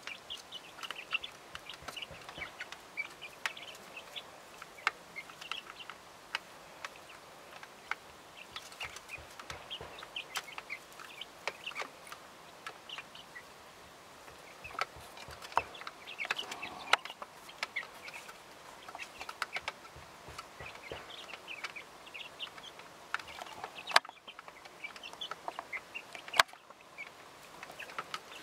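Small flock of hens clucking softly while pecking spaghetti from a plastic fridge-door shelf, their beaks tapping it in quick irregular clicks, with two sharper knocks near the end.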